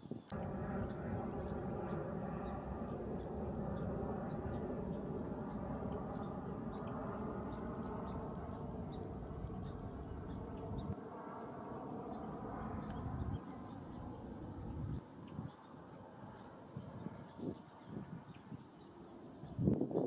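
A steady high-pitched insect trill runs throughout. Under it, for the first half, a louder low rumbling drone with a hum over it drops away in steps between about 11 and 15 seconds in.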